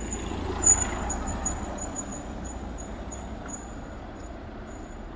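A road vehicle passing on the street, its noise swelling and then fading away, with one sharp click a little under a second in.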